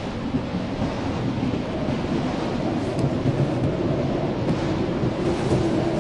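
Steady low blizzard wind noise, a dense even rush without a break, with a few faint brief ticks in the high range.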